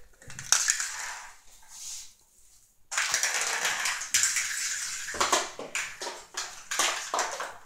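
A walnut rolling and clattering across a tiled floor as Maine Coon kittens chase and bat it, their claws scrabbling on the tiles. Quiet briefly about two seconds in, then dense scuffling with sharp clicks.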